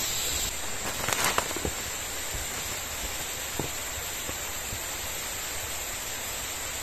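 Steady forest ambience: an even hiss with a constant high-pitched drone. A few faint crackles of footsteps on dry leaf litter come between one and two seconds in.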